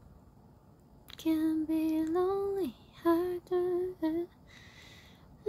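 A woman humming a short tune: one long note that rises a little and then slides down, followed by three short notes.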